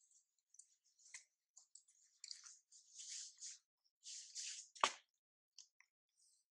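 Faint wet crunching and smacking of a baby macaque biting into and chewing a soft fruit, in short irregular bouts, with one sharper click nearly five seconds in.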